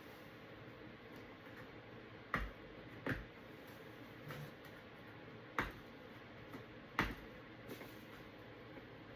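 Sharp clicks and light knocks from the parts of a TV being handled during disassembly: four loud clicks spread over several seconds, with a few softer ones between.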